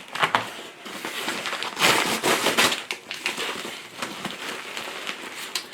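A mailing envelope being torn open and its packaging crinkled and rustled by hand, with a louder stretch of tearing and crackling about two seconds in.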